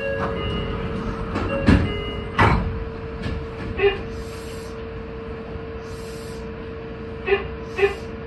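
Meitetsu 2200 series electric train standing at a platform, heard from the driver's cab: a steady electrical hum from the train's equipment, with two sharp knocks early on and a few short blips later.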